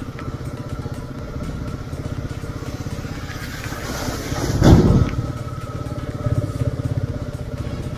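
Royal Enfield Meteor 350 motorcycle engine running with an even, fast beat. About halfway through, a loud rush of noise swells up and quickly dies away.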